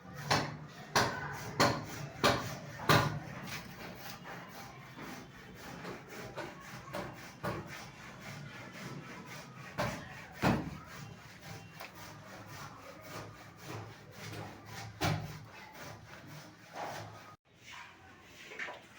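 Plumbing work: a run of sharp knocks, then quieter rubbing and scraping with an occasional louder knock.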